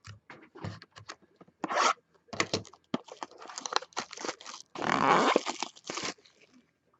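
Plastic wrap being torn off a sealed trading card box and the cardboard box opened: irregular crinkling and ripping, with a longer, louder rip about five seconds in.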